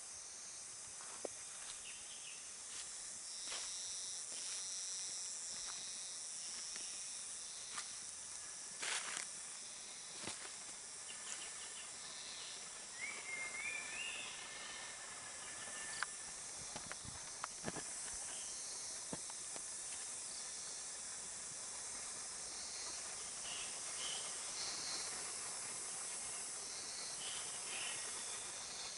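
Forest ambience: a steady high-pitched hiss of insects, with scattered faint clicks and rustles and a short rising chirp about thirteen seconds in.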